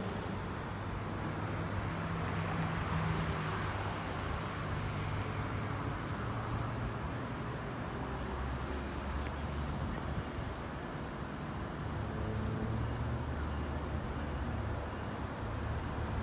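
Low, steady diesel engine rumble over outdoor traffic noise as a Metrolink commuter train approaches.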